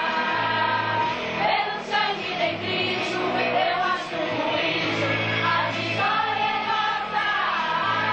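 Church choir of mostly women's voices singing together, over held low bass notes that change about once a second.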